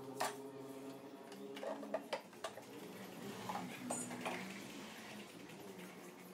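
Scattered light clicks and knocks, as of wooden parts and tools being handled, over a faint steady hum.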